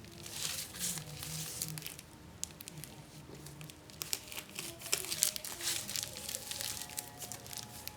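Plastic packaging crinkling and rustling in irregular bursts as the fiber optic cable is handled and unwrapped.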